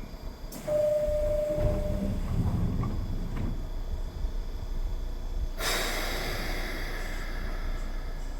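Nishitetsu electric train running at a station: a brief steady tone near the start, a low rumble, then a sudden loud rush of noise about five and a half seconds in that fades slowly.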